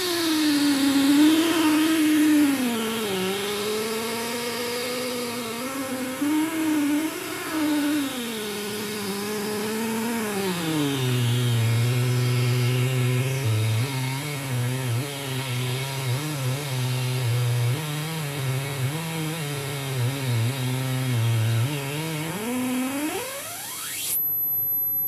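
Oscilloscope-music audio: a buzzy electronic tone whose pitch glides and wobbles, then settles on a steadier low drone about halfway through. Near the end the pitch sweeps sharply upward into a thin, high, steady whistle.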